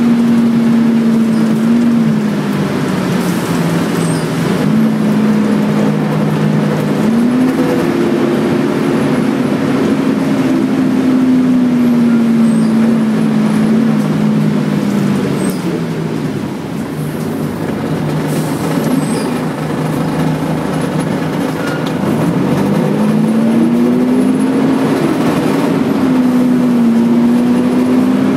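Volvo B10BLE bus's six-cylinder diesel engine heard from inside the saloon while driving. The engine note climbs and drops in steps as the gearbox changes gear, eases off and quietens in the middle, then climbs again as the bus accelerates.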